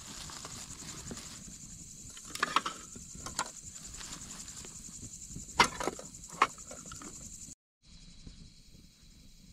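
Steady high-pitched chirring of crickets, with a few sharp clicks and knocks scattered through it. The chirring cuts off suddenly near the end, leaving a quieter background.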